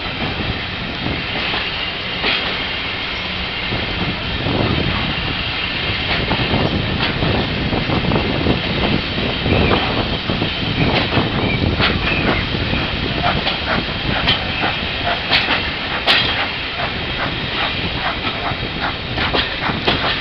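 Steam-hauled train, led by GWR Manor-class 4-6-0 7828 Norton Manor, running on the rails under a continuous rumble. The carriage wheels click over rail joints and pointwork, and the clicks come faster in the second half as the train gathers speed.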